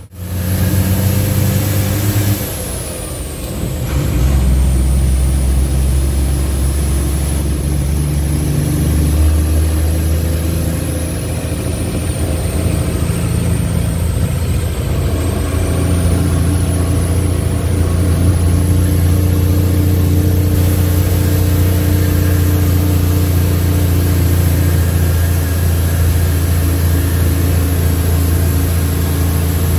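Leyland truck's 411 diesel engine pulling along the road, heard from inside the cab. The engine note drops away briefly about three seconds in, then pulls again at a new pitch and runs on steadily.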